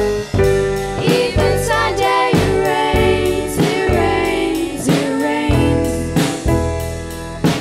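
A small live rock band playing: electric guitar, upright double bass and drum kit, with a melody line bending in pitch over the chords.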